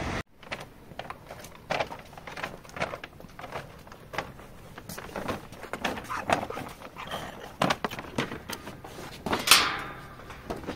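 Light footsteps and the rustle of a carried paper shopping bag, in small irregular clicks, with one louder, short sound about nine seconds in as she reaches the metal gate.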